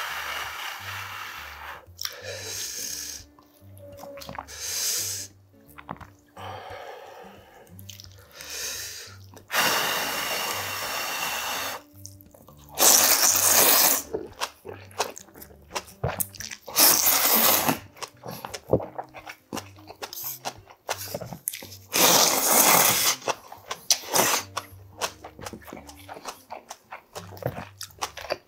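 Thick udon noodles slurped up from chopsticks in several long, loud hissing draws, with wet chewing and lip smacks in between. The biggest slurps come about halfway through and again a few seconds later.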